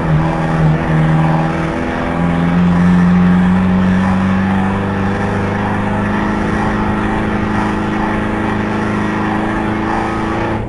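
Ford Transit banger van's engine running hard at fairly steady high revs, its pitch stepping up about two seconds in.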